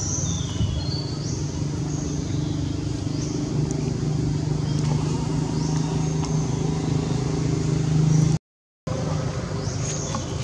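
A steady low engine hum with repeated short, high, rising chirps above it, about one every second and a half. The sound cuts out completely for a moment about eight seconds in.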